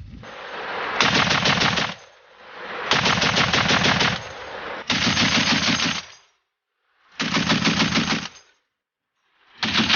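M2A1 .50 calibre heavy machine gun firing short bursts of rapid shots. There are about four or five bursts of roughly a second each, with brief pauses between them.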